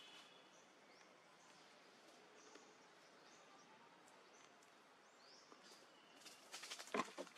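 Near silence: faint outdoor ambience with a few faint, high, short chirps, and a brief burst of clicks and rustling near the end.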